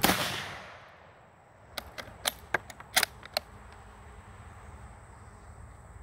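A Yugoslav M24/52c Mauser bolt-action rifle fires one 8mm Mauser round, the report trailing off over about a second. Between about two and three and a half seconds in comes a quick run of sharp metallic clicks as the bolt is worked to eject the spent case and chamber the next round.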